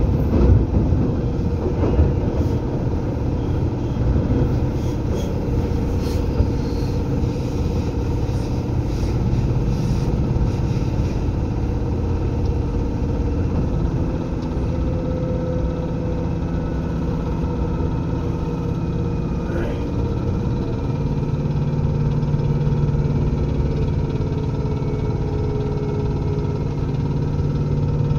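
Onboard running sound of a Seibu 2000 series electric train (set 2007F), heard from inside the car above its HB-2000 underfloor unit: a steady hum with rumbling wheel and rail noise. There are a few clicks near the start, and the hum changes pitch about halfway through and again about two-thirds of the way.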